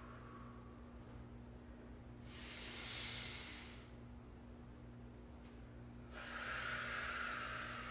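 A woman's audible breathing, paced to yoga movements: one breath about two seconds in, lasting about a second and a half, and another starting about six seconds in, over a faint steady hum.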